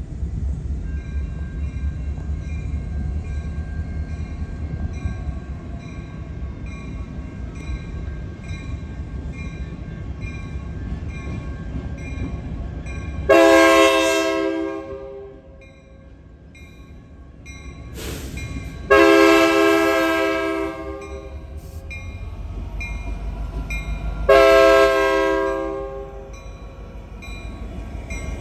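Diesel locomotive rumbling past at low speed while a bell rings at an even pace. It then sounds its multi-note air horn in three long blasts about five seconds apart, with a brief toot just before the second.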